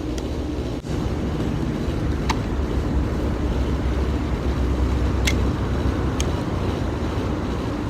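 Steady low outdoor rumble, like wind or distant traffic, with a few faint, sharp clicks scattered through it.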